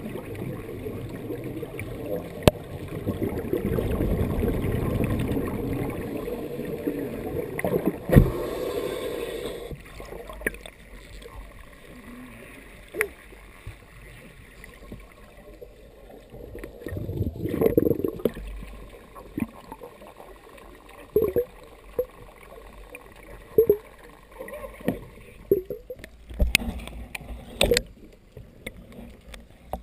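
Underwater bubble noise from a scuba diver's exhaled breath, rushing and gurgling past the camera. There is a long rush in the first several seconds, then shorter bursts later, with scattered sharp clicks and knocks.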